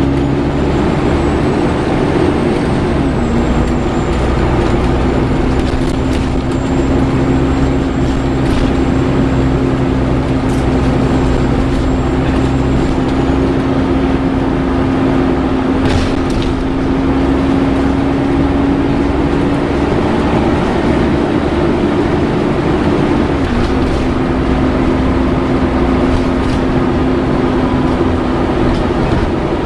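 Volvo B7TL double-decker bus heard from inside the passenger saloon: the engine cooling fan gives a steady hoover-like whine over the engine and road rumble. The whine dips in pitch briefly twice, about three seconds in and again about twenty-three seconds in.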